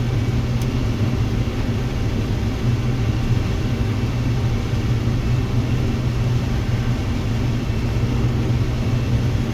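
Combine harvester running steadily while harvesting corn, a constant low drone with no change in pitch.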